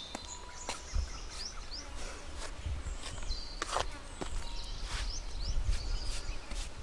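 Outdoor ambience of small birds chirping in short, rising calls every second or so, over a low rumble of wind on the microphone and scattered soft clicks.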